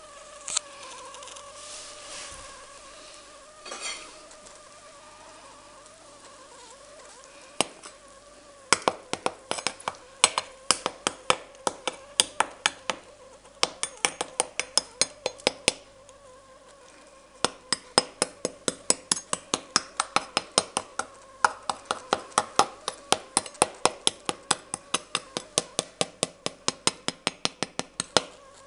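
A knife sawing through crisp roast pork crackling, making sharp crunching cracks about three a second in runs with short pauses, starting about nine seconds in. The loud crunch shows the crackling is fully crisp. A faint steady hum runs underneath before the cutting starts.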